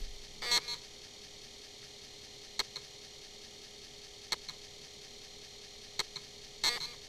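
A few sharp clicks, one every second or two, over a faint steady hum.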